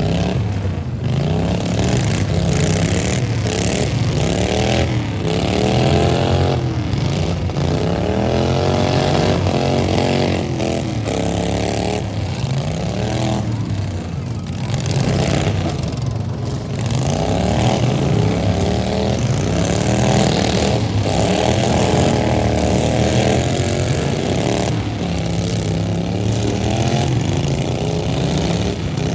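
Several riding lawn mower engines running and revving together, their pitches rising and falling and overlapping without a break.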